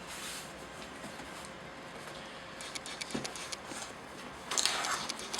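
Faint scattered clicks and rubbing of things being handled, with a louder rustling scrape about four and a half seconds in.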